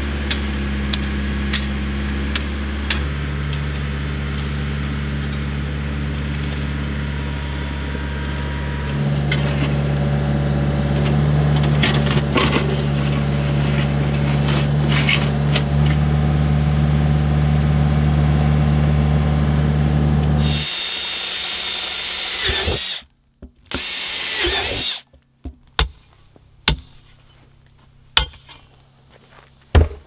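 Branson compact tractor's diesel engine running steadily under load, its note shifting a couple of times, with light scrapes and clicks over it. About 21 seconds in the engine sound cuts off, and two short spells of hissy rushing noise follow, then scattered light knocks and scrapes.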